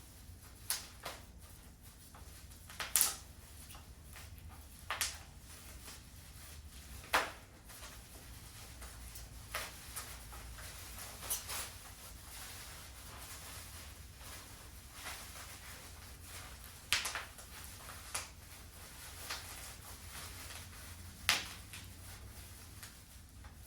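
Irregular light knocks and clicks, about a dozen spread unevenly, from handling a boxed bicycle and its packaging during unboxing.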